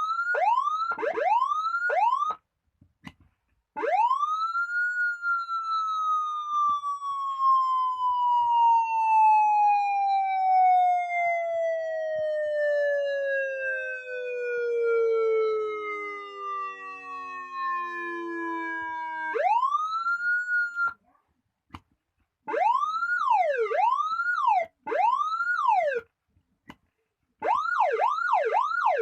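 TOA electronic siren sounding in several patterns. It opens with a few quick up-and-down sweeps, then rises into a long wail that slowly falls in pitch over about fifteen seconds, jumps back up and cuts off. It ends with two bursts of repeated sweeps, about one a second and then about two a second, with short silences between the patterns.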